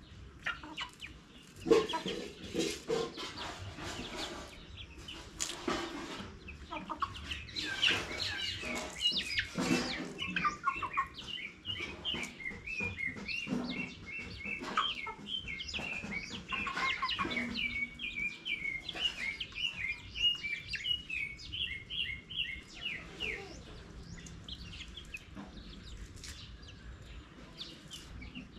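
Chickens clucking, with a long run of quick, high chirps through the middle.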